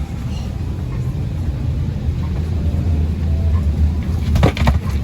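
Steady low rumble inside the cabin of a parked Embraer 175 regional jet during boarding, with a quick cluster of sharp knocks about four and a half seconds in.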